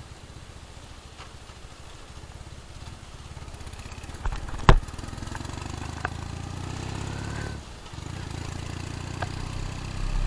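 Motorcycle engine running at low road speed with a steady low rumble. A single sharp knock comes about halfway through, after which the engine is louder, with a brief dip in the engine sound about three-quarters of the way in.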